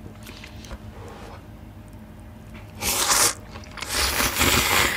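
Close-miked slurping of spicy Buldak jjolbokki noodles from a bowl: two loud slurps, a short one about three seconds in and a longer one near the end, after quiet chewing.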